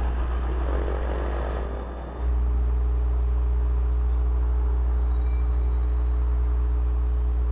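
Motorcycle engine and wind rumble while riding at low speed. About two seconds in, the sound cuts abruptly to a steady low drone with a few steady tones over it.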